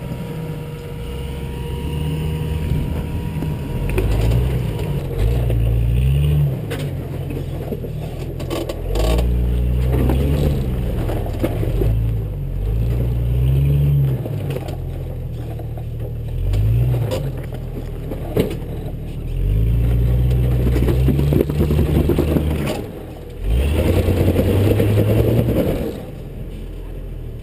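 Jeep Cherokee XJ engine revving up and falling back in repeated short bursts as the Jeep crawls over rock, with scraping and knocks from the tires and underbody on the rocks.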